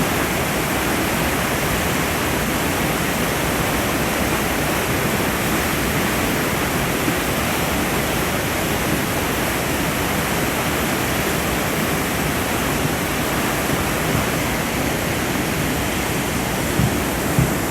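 A river in spate, swollen by typhoon rain, rushing with a steady, unbroken noise of fast-flowing floodwater.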